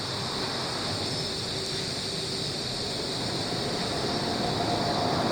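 A steady chorus of insects chirring in a high band over the low, even rush of a river running high after a typhoon.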